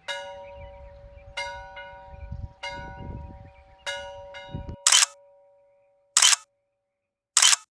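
A bell struck about four times, a little over a second apart, each strike ringing on and fading. Then come three loud, short camera-shutter clicks at about the same spacing.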